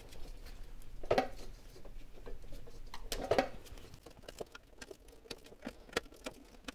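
Spark plug wires being pulled off the distributor cap of a Chevy 350 V8 by hand: scattered small clicks and scuffs, with two louder scrapes about a second in and just after three seconds in.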